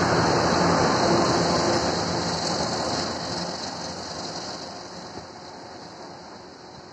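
Twin-section 2M62U diesel locomotive running past, its two-stroke 14D40 diesel engines and wheels sounding close at first. The sound then fades steadily as the locomotive draws away, from about three seconds in.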